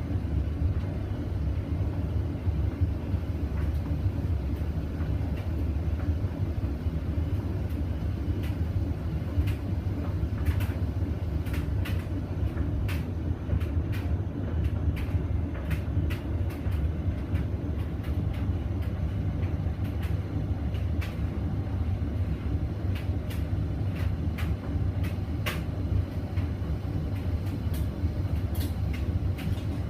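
Hoover VisionDynamic washing machine spinning a load of blanket bedding: a steady low hum from the drum and motor, with irregular clicks and knocks throughout.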